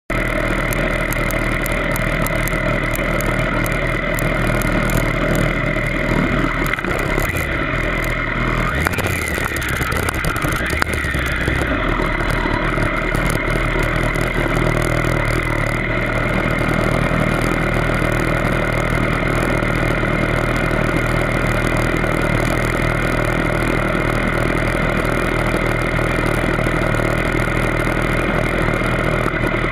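Kawasaki ZX10R's inline-four sportbike engine idling steadily up close, with a brief wobble in pitch about nine to eleven seconds in.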